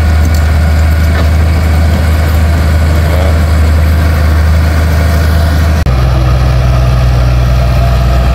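Komatsu D41P crawler bulldozer's diesel engine running loud and steady while it pushes earth with its blade; about six seconds in there is a brief dropout and the engine note changes abruptly.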